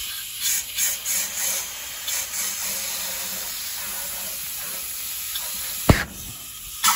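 Compressed air hissing steadily from a blowgun into a tractor tire's valve stem, valve core removed, to force a bicycle inner tube out of the gap and seat the stubborn top bead. The hiss swells in short spurts about a second in, and a single sharp knock comes near the end.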